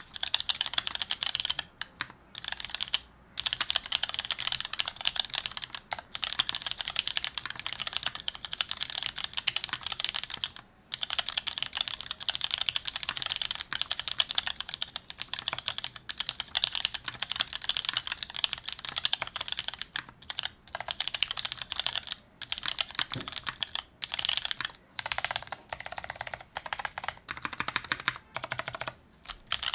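Fast, steady typing on a TX84 mechanical keyboard with vintage brown switches, an aluminium plate and GMK Modern Dolch keycaps: a dense patter of keystrokes broken by a few brief pauses.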